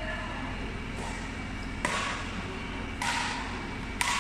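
Badminton rackets striking a shuttlecock in a rally: four sharp hits about a second apart, the first faint, each with a short echo from the hall.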